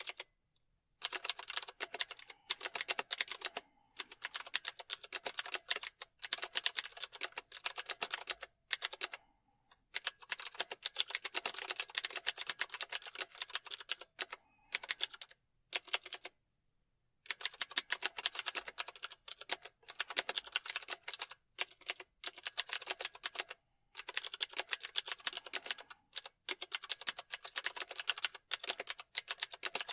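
Computer keyboard being typed on in fast, dense runs of clicking keystrokes, broken by short pauses of up to about a second.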